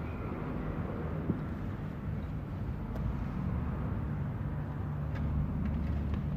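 Steady low background rumble, with a few light clicks and taps as a car head unit and its plastic mounting cradle are handled on a workbench.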